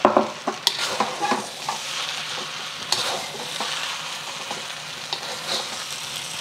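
Fried rice with egg sizzling in a hot wok as it is stirred and broken up. There are several sharp knocks and scrapes of the utensil on the wok in the first second and a half, then a few more scattered ones.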